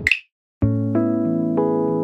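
A lofi music track ends on a short bright snap-like click, then after a brief silence a new mellow lofi track with electric piano chords starts about half a second in.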